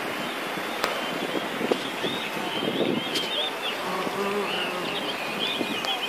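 Radio-controlled model plane's motor and propeller buzzing overhead, over steady gusty wind noise.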